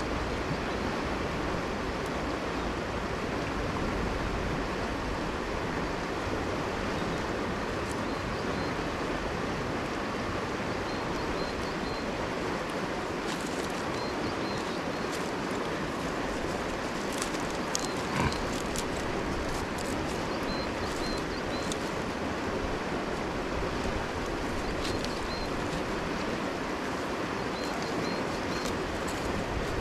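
Steady rush of a river flowing over a stony bed. Dry sticks click and crackle as they are handled and bound into a bundle, mostly in the middle stretch, with one sharper crack about two-thirds of the way through.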